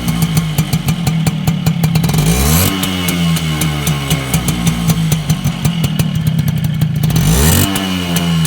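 Suzuki AX100's two-stroke single-cylinder engine running through its stock exhaust, which has been set up to whistle. The revs climb twice, about two and a half seconds in and again near the end, and hold high in between.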